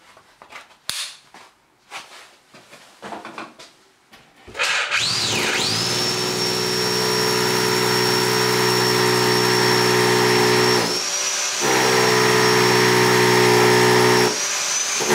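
Bosch rotary hammer drill (Bohrhammer) on hammer action, drilling a pilot hole through a brick wall with a masonry bit. After a few seconds of faint handling clicks it starts about four and a half seconds in, spins up with a rising whine, then runs steadily under load, easing off briefly twice.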